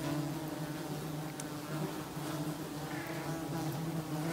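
A swarm of biting midges buzzing close around the microphone: a steady, low, many-winged drone.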